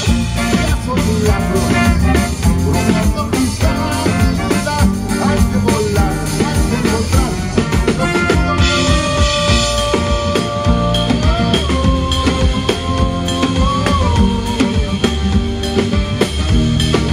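Live band playing an instrumental passage, the drum kit keeping a busy beat on snare, bass drum and rimshots. From about eight seconds in, long held melody notes with small pitch bends come in over the drums.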